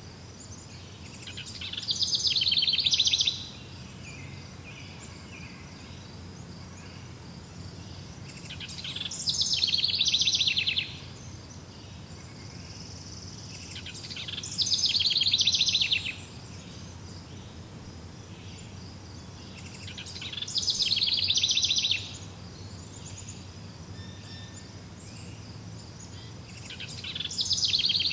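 An animal call, a rapidly pulsing trill that swells over a second or two and then cuts off sharply, repeated five times about every six seconds. A steady low hum runs underneath.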